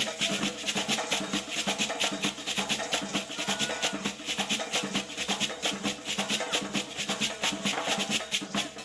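Traditional West African dance drumming: rapid, dense drum strokes in a steady, driving rhythm.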